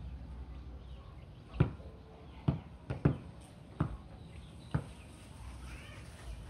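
A volleyball being hit and bounced in play: about six sharp slaps, irregularly spaced, over roughly three seconds.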